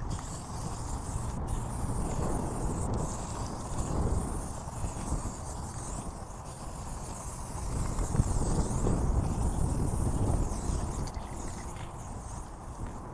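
Aerosol spray paint can hissing as paint is sprayed onto a wall, over a low rumble underneath.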